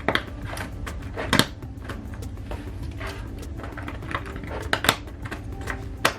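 Plastic LEGO pieces clicking and clattering as they are handled on a table, in irregular sharp clicks with a few louder ones.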